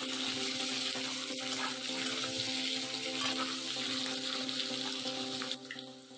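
Sliced onions, green chillies and garlic sizzling in hot oil in a metal kadhai while being stirred with a flat spatula, with a few light scrapes of the spatula on the pan. A steady low hum runs underneath, and the sizzle drops away shortly before the end.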